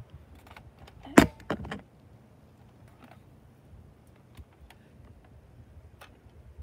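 Handling noise: a few sharp clicks and knocks, the loudest about a second in, then only faint scattered ticks.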